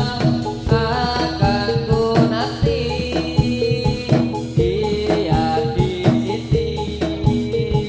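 Javanese gamelan music accompanying a jathilan dance: pitched metallophone and melodic lines over regular drum strokes.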